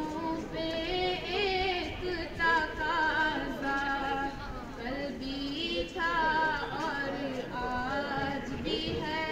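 A girl's voice singing a naat, an Urdu devotional song in praise of the Prophet, in long held phrases with wavering, ornamented pitch and brief pauses for breath.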